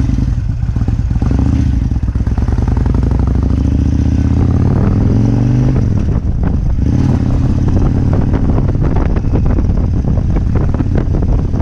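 Kawasaki Vulcan 1600 Classic's V-twin engine running while the motorcycle is ridden. Its pitch rises over the first few seconds, dips briefly about six seconds in, then runs on steadily.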